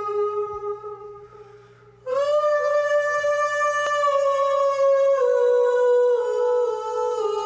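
Live solo music of long held, steady notes. One note fades away, and after a brief lull a new held note comes in about two seconds in with a slight scoop upward, then steps down in pitch twice. A single sharp click sounds about four seconds in.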